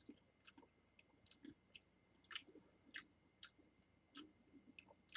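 Near silence with a dozen or so faint, short, irregular clicks.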